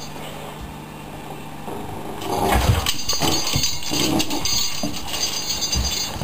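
An American bulldog puppy tugging and jumping at a rag toy on a spring pole, with irregular knocks, scuffles and scrabbling paws on a tile floor starting about two seconds in.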